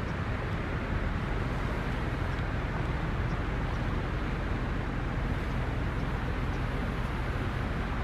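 Steady outdoor background noise: a continuous low rumble and hiss with no distinct events.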